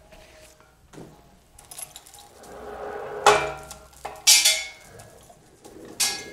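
Gantry crane chain and hook clanking as the lifting strap is taken off: three sharp metallic clanks with a short ring, about three, four and six seconds in, with rustling of the strap before the first.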